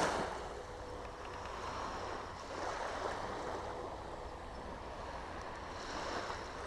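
Small waves washing on a shingle shore, swelling and fading about every three seconds.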